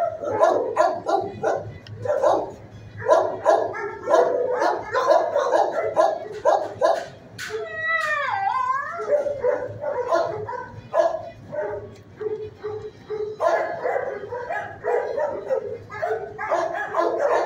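Shelter dogs barking almost without pause, with one drawn-out cry falling in pitch about eight seconds in, over a steady low hum.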